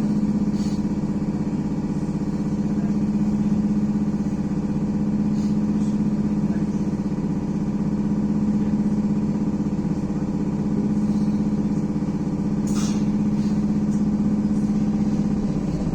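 Cabin sound of a BKM-321 electric trolleybus: a steady low electrical hum with running noise, and a single sharp click about 13 seconds in.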